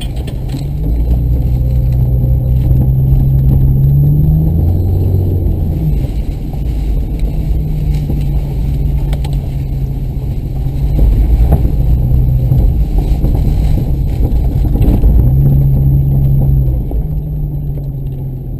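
Off-road vehicle engine working under load, its revs rising and dropping several times as it is driven over rough ground, with a few knocks from the vehicle.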